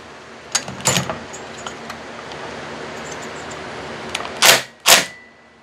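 Metal tools and chainsaw parts being handled: a few light clicks about a second in, then two louder sharp knocks near the end.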